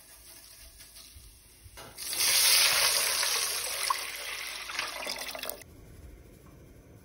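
Water poured in a steady stream into a metal pot of chili oil. It starts suddenly about two seconds in and stops about three and a half seconds later, loudest at the start.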